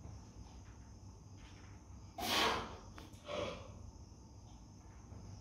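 A lifter's two forceful breaths under a heavy barbell back squat, a loud one about two seconds in and a shorter one about a second later, as he drives the bar up out of the hole.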